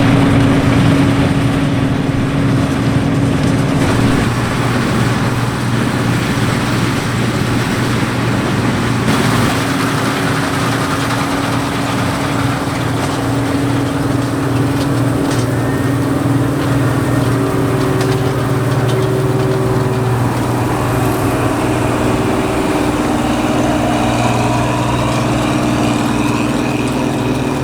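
Claas Dominator 85 combine harvester running steadily under load while cutting wheat, a continuous engine hum with the threshing machinery.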